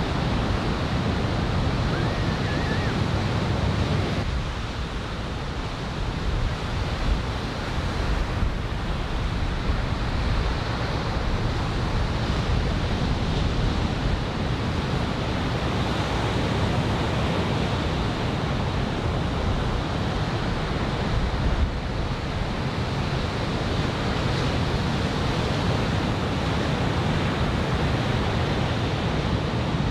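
Continuous wash of surf breaking on a sandy beach under a typhoon swell, with wind rumbling on the microphone.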